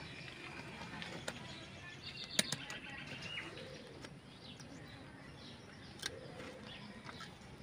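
A few sharp metallic clicks from pliers and small steel parts being handled during a harvester hydrostatic transmission (HST) teardown, the loudest about two and a half seconds in, with birds chirping in the background.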